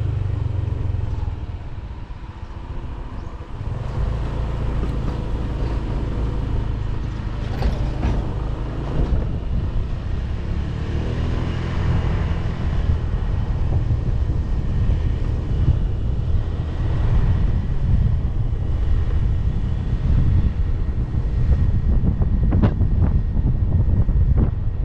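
Motorcycle engine running on the move, with wind and road noise on the microphone. The engine eases off briefly about two seconds in, then picks up again.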